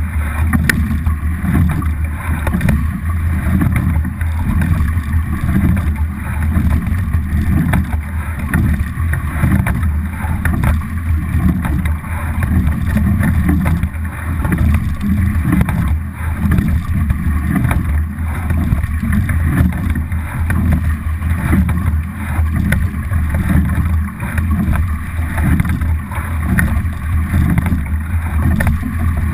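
Onboard sound of a racing double scull under way: water rushing along the hull and wind on the boat-mounted camera's microphone, swelling and dipping about every two seconds with each rowing stroke.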